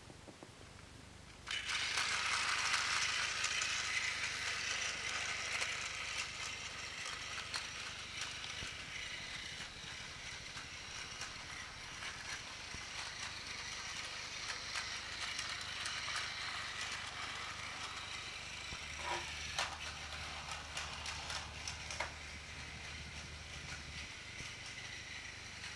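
Battery-powered TOMY Plarail toy train's small electric motor and gearbox whirring, switched on abruptly about a second and a half in and then running steadily with fine clicking.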